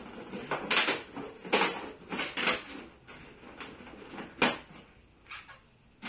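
Folding stove pipe being handled and pressed flat, giving a series of sharp clacks and rustles. The loudest comes about four and a half seconds in.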